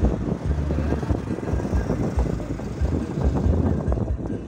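Street traffic heard from a moving vehicle: motorcycle engines and road noise, with a deep, uneven rumble.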